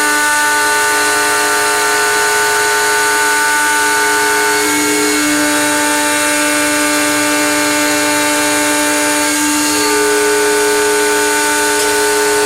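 CNC mill spindle cutting aluminium: a loud, steady machining whine made of many tones. The mix of tones shifts about a third of the way in and again about two-thirds in as the cut changes.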